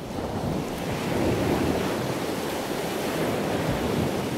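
Steady rushing noise of wind and waves on open water, with no distinct events.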